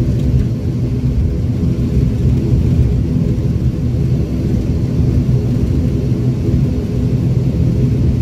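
ATR 72-600's Pratt & Whitney PW127 turboprop engine and propeller running at low taxi power, heard inside the cabin as a steady low drone with several humming tones.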